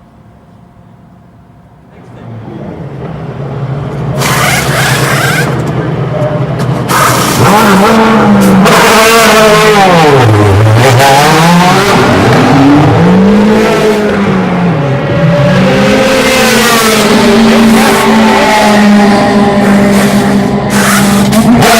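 DTM race cars' V8 engines approaching, growing louder over the first few seconds, then several cars passing close with their engine pitch repeatedly rising and falling through shifts and braking, with a deep drop in pitch about ten seconds in.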